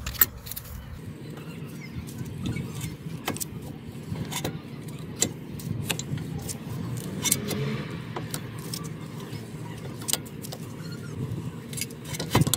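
Brake caliper piston wind-back tool being turned to push the piston of a BMW E90 front brake caliper back into its bore: sharp metallic clicks and clinks at irregular intervals, about one a second, over a low steady rumble.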